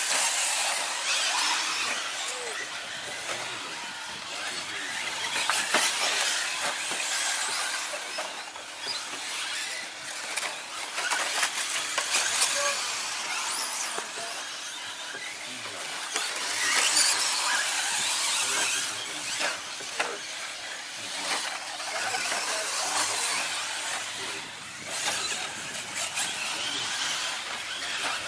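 Several radio-controlled short course trucks racing on a dirt track, the high-pitched whine of their electric motors rising and falling as they accelerate and brake.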